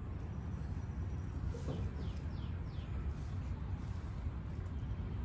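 A bird chirping a quick run of five or so falling high notes about a second and a half in, over a steady low outdoor rumble.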